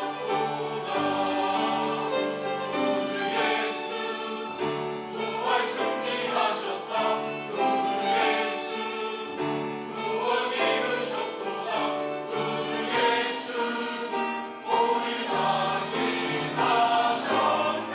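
Church choir singing a sacred Easter anthem in several parts, with long held chords.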